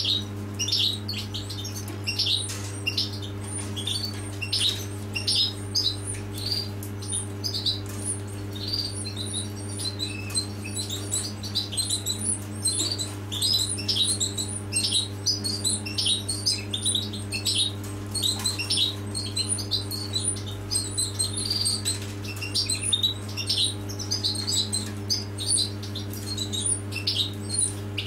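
Finch nestlings begging in the nest, a rapid run of thin, high cheeps that keeps on without pause while the adult feeds them. A steady low electrical hum runs underneath.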